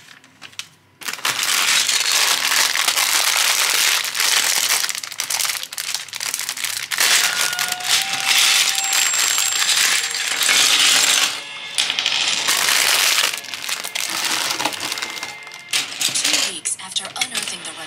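Clear plastic bag of Lego pieces crinkling as it is handled and opened, with plastic bricks clattering out onto the table. The crinkling is loud and goes on for about fifteen seconds, with two brief pauses near the end.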